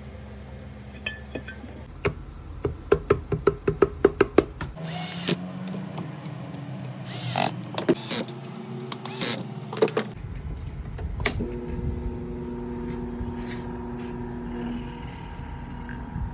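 Hand repair work on a window AC fan motor: a run of sharp metal knocks, about four a second, then several louder scraping and clattering bursts, then a steady hum with several held tones from about ten seconds in.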